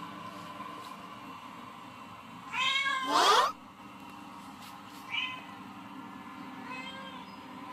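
Cats meowing played through a television's speakers: a loud pair of meows about three seconds in, a short meow near five seconds, and a softer one near the end, over a steady hum.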